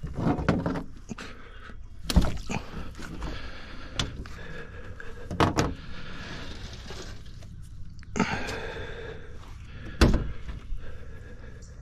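Several knocks and thumps on an aluminium boat's deck and hull, the loudest about ten seconds in, with quieter handling noises between.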